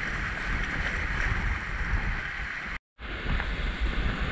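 Sea waves washing against shore rocks, with wind buffeting the microphone as a steady low rumble. The sound drops out completely for a moment about three seconds in.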